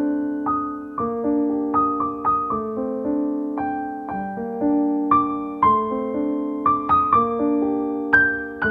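Background music: a slow, gentle piano piece, single struck notes and chords ringing out one after another at an unhurried, even pace.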